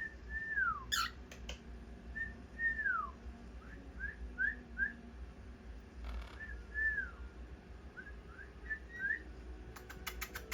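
A pet parrot whistling a string of clear notes, some long and sliding down in pitch, others short, quick upward chirps, with a few sharp clicks about a second in and near the end.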